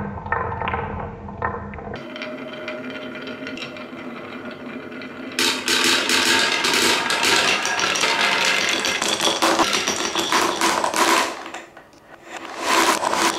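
Small marbles rolling and clattering along wooden marble-run track and through a plastic tunnel: a low rolling rumble at first, then a dense rattle of many quick knocks from about five seconds in. Near the end it dies away briefly, then sharp knocks return as balls drop into a wooden tray.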